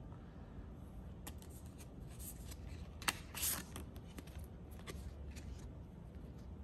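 Thin plastic film cards being handled, slid out of a paper sleeve and laid down one by one: scattered light clicks and rustles, with a sharp click about three seconds in followed by a brief louder rustle.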